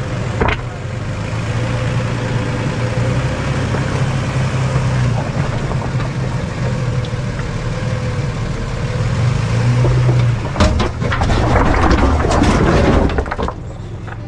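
Off-road 4x4's engine running steadily at low revs while crawling along a rocky trail. From about ten seconds in, a rough crunching noise with clicks rises over it for about three seconds.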